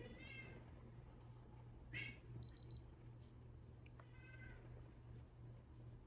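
Domestic cat meowing three times, short high meows about two seconds apart.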